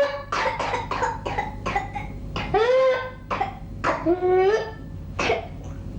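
Whooping cough (pertussis) fit: runs of rapid short coughs, each run ending in a drawn-in, rising whoop as the breath is pulled back in. There are three whoops: one at the very start, one near three seconds in, and one a little after four seconds.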